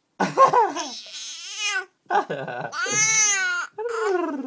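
A baby laughing after her father's sneezes, in three long, high-pitched bursts.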